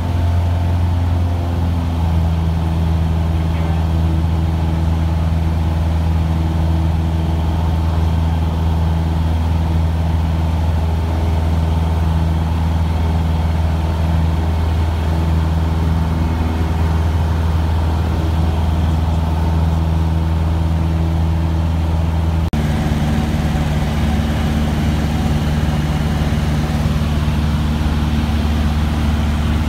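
Cessna 150's four-cylinder Continental O-200 engine and propeller running at takeoff power through the takeoff roll and climb, a loud steady drone heard from inside the cabin. The tone shifts abruptly about three-quarters of the way through.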